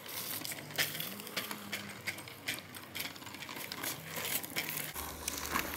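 Hoverboard go-kart driving over asphalt: small wheels and kart frame rattling and clicking on the rough surface, with a faint electric motor hum that rises slightly about a second in.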